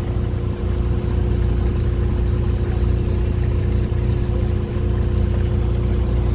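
Cobra 850 motorboat's engine running steadily under way at an even speed, a constant droning hum over the rush of water.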